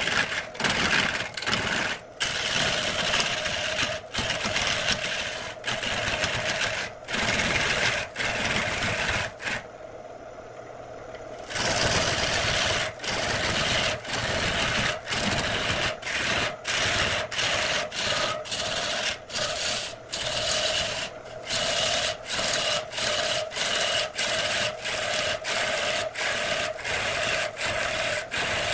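A turning tool cutting into a large wooden blank spinning on a wood lathe: a rough, scraping cut in short repeated passes, about one to two a second, over the lathe's steady hum. The cutting stops for about two seconds near the middle.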